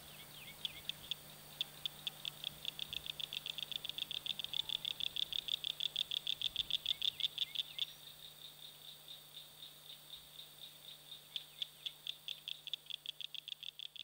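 Frog calling: a run of sharp, high clicks that starts sparse and speeds up to about seven a second, breaks off about eight seconds in, then starts up and speeds up again near the end.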